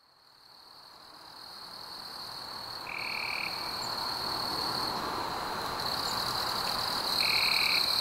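Nature ambience fading in: a steady high-pitched insect trill over a soft hiss, with two short calls about four seconds apart.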